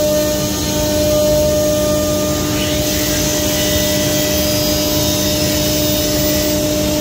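CNC router spindle running at a steady high speed with a constant whine while the bit cuts through a wooden sheet panel.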